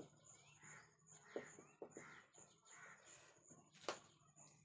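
Near silence: quiet room tone with a faint steady high-pitched whine, a few faint brief squeaks and several soft taps, the clearest tap near the end.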